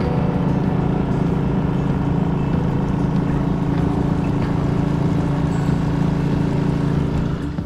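Small boat's outboard motor running steadily at a constant speed, the boat under way on the river. The motor sound drops away near the end.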